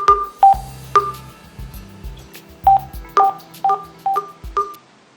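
A song played through a Xiaomi Mi portable Bluetooth speaker turned down a little from full volume: a run of short, ringing melody notes over a low bass line, stopping shortly before the end.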